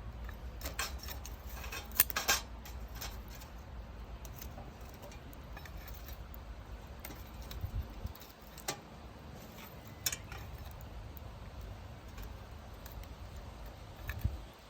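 Burning firewood crackling: scattered sharp pops and snaps, the loudest cluster about two seconds in, over a low rumble that drops away about eight seconds in.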